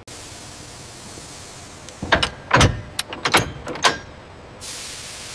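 A run of clunks and clicks, as of a heavy load on a forklift being set down and latched into place, over a steady hiss. Near the end, a short burst of high hissing air.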